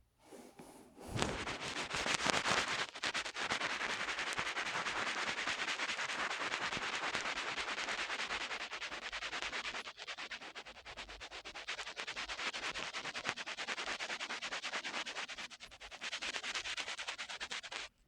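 Steady, rapid rubbing noise made of dense fine ticks. It starts about a second in, eases off briefly around the middle, and stops abruptly near the end.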